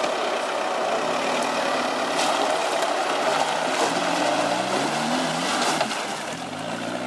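Off-road 4x4 engine under load, with a steady rushing noise and a few sharp knocks. From about halfway the revs rise and fall, and it eases off slightly near the end.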